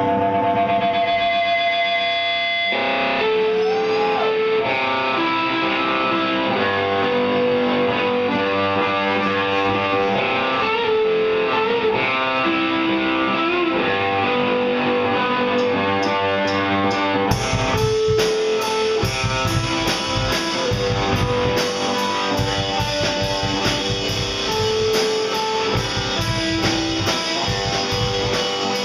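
Live rock band playing with no vocals: two electric guitars pick a melodic line of held and sliding notes. The drum kit comes in about two-thirds of the way through.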